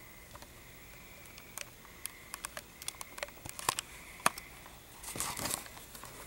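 Handling noise from a handheld camera: scattered light clicks and taps, then a brief rustle about five seconds in, over a faint steady high whine in a quiet room.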